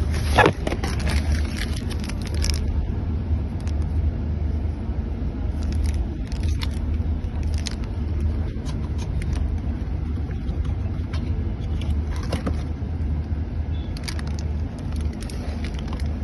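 Cabin of a moving electric bus: a steady low road and tyre rumble with light rattles and clicks, and a sharper knock about half a second in.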